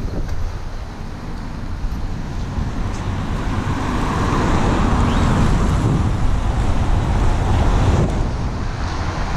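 Road noise from a car driving on wet pavement in the rain: a steady low rumble with tyre hiss, and wind buffeting the microphone. The hiss swells louder from about four seconds in.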